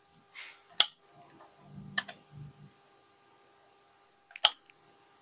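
Small hand-soldering noises: two sharp clicks of the soldering iron and solder wire against the metal terminals, one about a second in and one near the end, with a few lighter taps and faint handling between.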